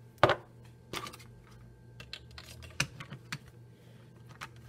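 Plastic bottles and caps handled on a countertop: a sharp knock about a quarter second in, the loudest sound, another about a second in, then a run of light clicks and taps as a trigger-sprayer head is fitted to a plastic spray bottle.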